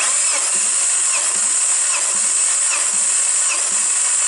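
Electric drill spinning the crankshaft of a Volvo B5244S5 2.4-litre 20-valve inline-five, starting abruptly and running steadily with a high whine, with a low thud about every three-quarters of a second as the piston comes up on compression. This is cranking for a compression test on the second cylinder, which builds to 10 kg/cm².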